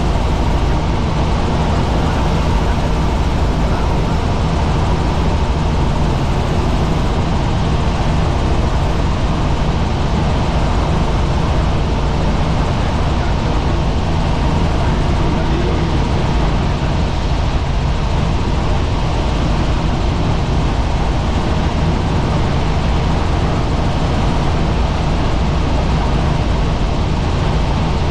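Helicopter in flight: a loud, steady drone of rotor and engine noise with a low hum underneath.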